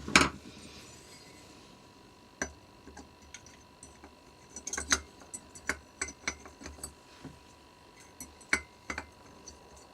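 Small metal carburettor parts clicking and clinking as they are handled and fitted together, with one louder knock at the very start and a run of light irregular clicks through the middle and later part.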